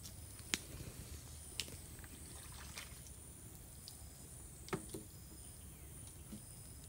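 A few faint knocks and clicks as a long plastic PVC pipe is shifted and handled at the water's edge, two of them close together about two-thirds of the way in. A steady, faint high-pitched whine runs underneath.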